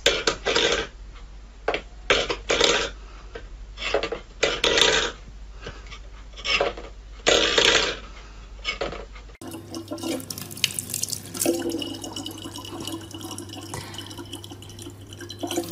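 For the first nine seconds or so, a metal pet bowl clatters on a wooden floor in a run of short, uneven knocks. After that, a tap runs a thin steady stream of water into a plastic bottle.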